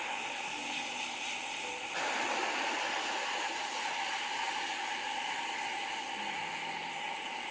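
Heat gun blowing hot air steadily at a small brass part, warming it so engraver's wax melts into the engraved numbers. The rush of air grows fuller about two seconds in.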